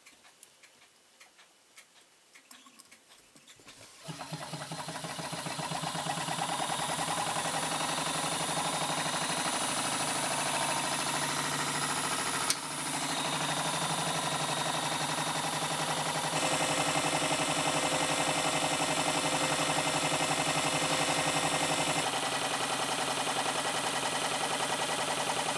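Small GT03 Stirling hot-air engine with a glass displacer cylinder running fast, its flywheel driving a small DC generator by a rubber belt: a steady whir with a rapid, even mechanical ticking. It starts about four seconds in after a few faint clicks and builds over a couple of seconds. About halfway through there is a single sharp click as the generator's switch is flipped.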